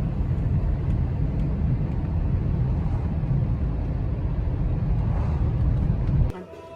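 Steady low rumble of a car driving on the road, heard from inside the cabin, cutting off suddenly near the end.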